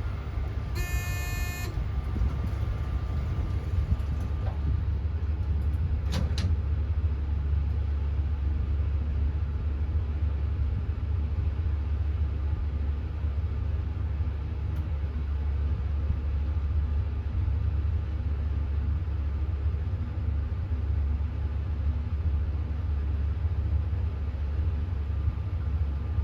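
Elevator car in motion, a steady low rumble throughout. A short electronic buzz-tone sounds about a second in, and a sharp click about six seconds in.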